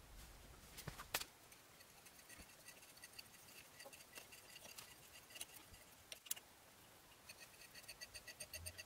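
Faint scattered clicks, the sharpest about a second in, then near the end a quick even run of ticks, about seven a second.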